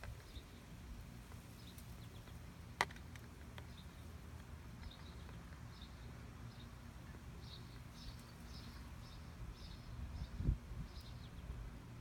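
Wind rumbling on the microphone outdoors, with faint, scattered high chirps of small birds that come more often in the second half. A sharp click sounds about three seconds in and a low thump about ten and a half seconds in.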